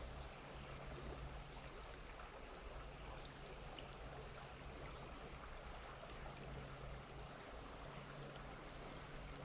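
Creek water running, a faint steady rush, with a low hum coming and going underneath.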